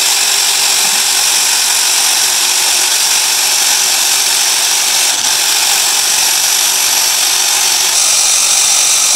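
Electric drill running loud and steady at constant speed, its bit boring into a broken bolt in a cast-iron truck engine cylinder head.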